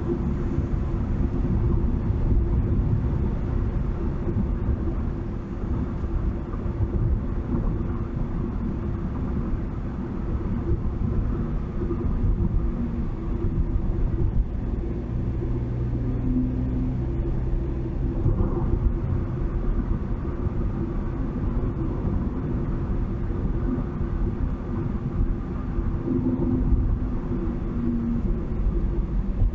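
Steady low rumble of a vehicle driving along a highway, road and engine noise without a break.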